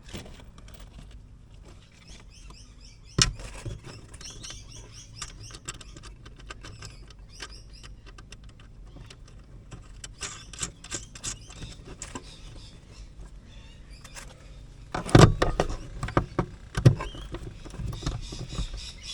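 Hand tools at work bolting an inverter in place: irregular clicks, scrapes and knocks with faint squeaking, a sharp knock about three seconds in and a run of louder knocks near the end.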